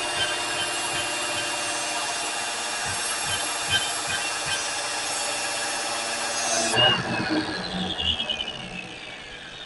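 Electric grinder running with a steady high whine and hiss and a few brief louder scrapes. About seven seconds in it is switched off, and its whine falls in pitch as the wheel spins down.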